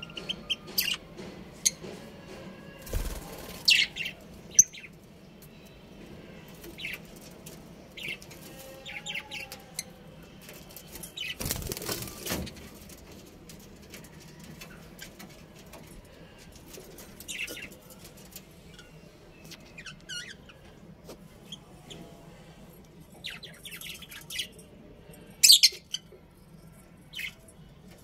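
Budgerigars chirping in short, scattered calls, with brief wing flutters about 3 seconds in and again around 12 seconds.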